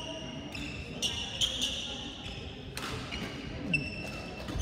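Badminton rally: a few sharp racket hits on the shuttlecock and footfalls, mixed with short high squeaks of court shoes on the hall floor.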